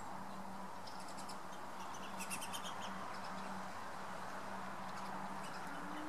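Small songbirds giving quick, high chips and twitters in short rapid runs, loudest a little past two seconds in, over a steady low hum.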